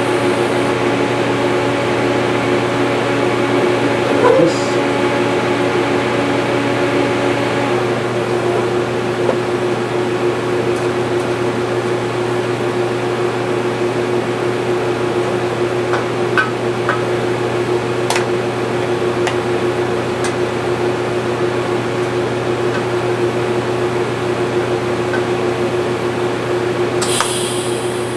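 Steady machine hum with a fan-like rush and several steady tones. Some of the tones drop out about eight seconds in, and a few faint clicks come through.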